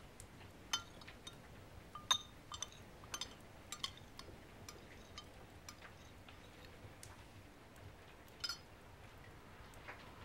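A metal teaspoon clinking against a china teacup as tea is stirred: irregular light, ringing clinks, most of them in the first four seconds, one more near the end.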